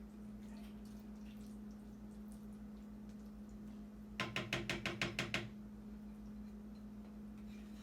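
A spoon clacking rapidly against a bowl while working the hot caramel, about ten quick knocks in a second and a half starting about four seconds in, over a steady low hum.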